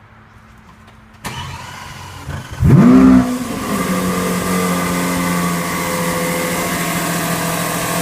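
Lamborghini Aventador LP700-4's 6.5-litre V12 starting from cold silence: the starter turns for about a second and a half, the engine catches about two and a half seconds in with a sharp rising flare of revs, the loudest moment, then drops and settles into a steady idle.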